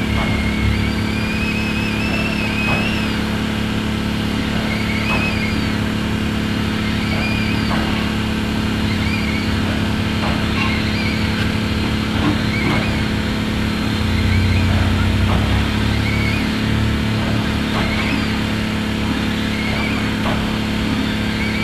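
Steam locomotives standing with steam up: a steady low hum under an even hiss, with a faint high wavering squeal every couple of seconds and a few soft clicks. A low rumble swells briefly about two-thirds of the way through.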